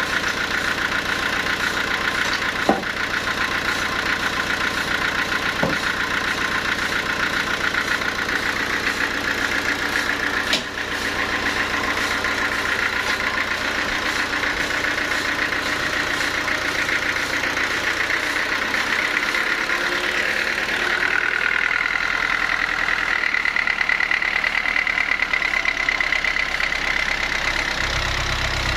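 Sawmill machinery running steadily with a continuous mechanical drone, with a few sharp knocks at about 3, 6 and 10 seconds in.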